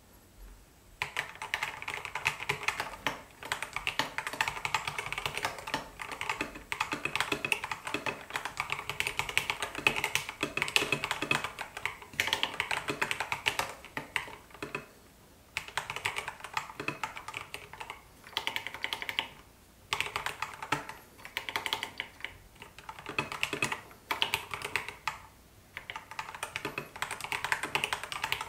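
Typing on an Epomaker TH80 Pro mechanical keyboard: fast runs of key clacks that begin about a second in, with several brief pauses between bursts.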